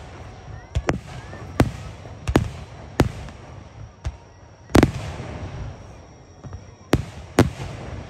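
Aerial firework shells bursting: about nine sharp bangs at uneven intervals, each trailing off in a rumbling echo, the loudest about five seconds in.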